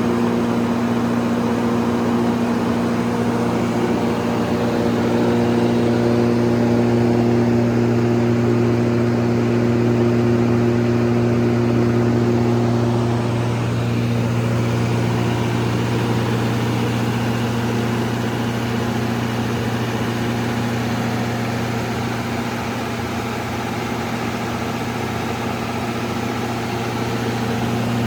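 81 kW Kohler diesel generator set with a John Deere engine running steadily at constant speed, a continuous even hum. One higher note in the hum fades out about halfway through.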